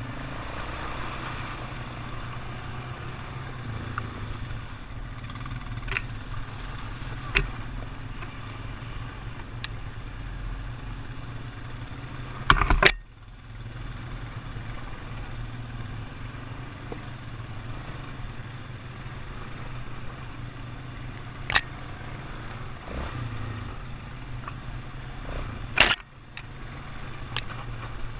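ATV engine running steadily while riding over bumpy ground, broken by several sharp knocks and rattles as the machine jolts over the humps; the loudest come about halfway through and near the end.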